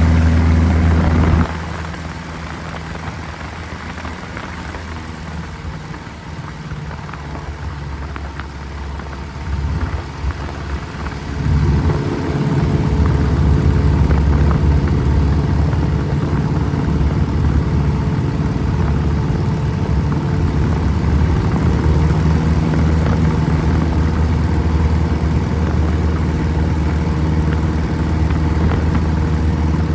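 Piper PA-18 Super Cub's piston engine running. The engine note drops back sharply about a second and a half in, then picks up again around twelve seconds in and runs steadily.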